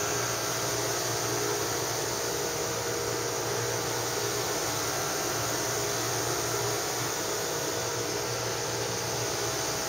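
Steady whooshing air noise, like a ventilation fan, with a faint low mains hum under it.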